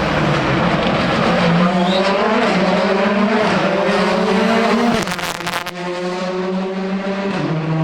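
Rally car engine under hard acceleration, its pitch climbing in steps through the gears. About five seconds in the revs drop sharply with a brief crackling burst, and the engine then runs at a lower pitch.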